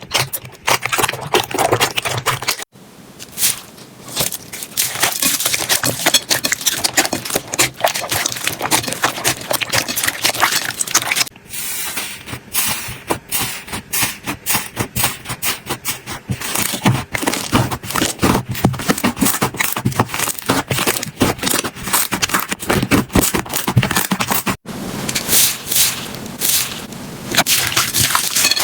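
Slime being squeezed, poked and stretched by hand, making rapid crackling and popping clicks. The sound breaks off and changes abruptly about three, eleven and twenty-five seconds in, as one clip gives way to the next.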